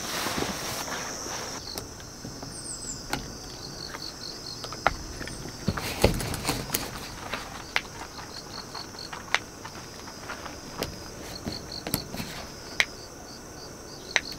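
Insects chirping steadily in a high trill, with rows of quick even pulses, over scattered sharp clicks and knocks of camping gear being handled; the loudest knock comes about six seconds in.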